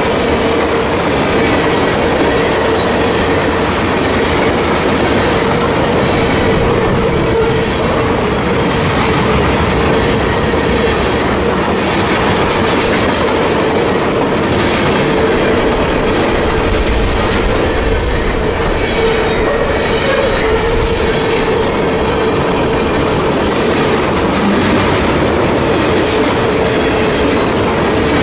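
Norfolk Southern freight train of covered hopper cars rolling past at a steady speed: continuous rumble and clickety-clack of wheels over the rail, with the grade crossing's mechanical bell ringing steadily over it.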